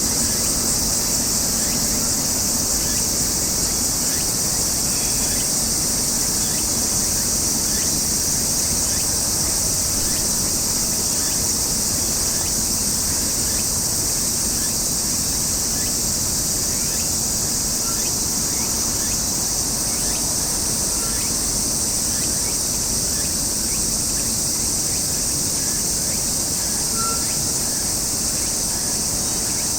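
A steady, unbroken chorus of summer insects, high-pitched, over a low background rumble, with a few faint chirps.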